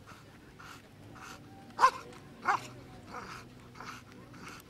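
Belgian Malinois barking steadily at the helper in a bite sleeve, about one sharp bark every half second or so, with the two loudest barks near the two-second mark. It is the hold-and-bark of protection work: the dog guards the still-standing helper and barks rather than bites.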